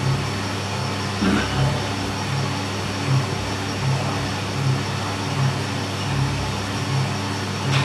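Drum coffee roaster running: a steady motor and fan hum with a soft pulse about every three-quarters of a second, and a short click near the end.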